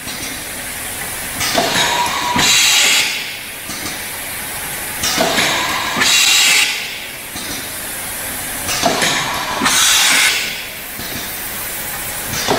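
JB QKL 250 pneumatic thermoforming form-fill-seal machine cycling over a steady running noise. Each stroke of its air cylinders gives a sharp knock followed by about a second of air hiss, repeating roughly every three and a half seconds.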